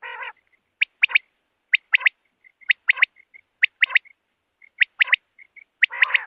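Common quail calling its three-note 'whit, whit-whit' phrase, one short note then two in quick succession, repeated about once a second, six times, with soft quieter notes between phrases. A short, harsher burst comes at the start and another near the end.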